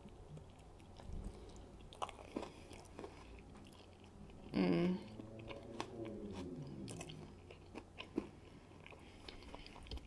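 Close-miked chewing and wet mouth clicks from eating a bite of burger slider. About halfway through comes a short, loud closed-mouth "mmm" hum that trails off, falling in pitch.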